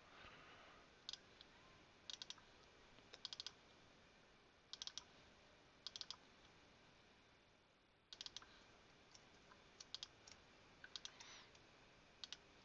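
Faint clicking of a computer mouse and keyboard, in short bursts of two to four quick clicks, about a dozen bursts spread unevenly.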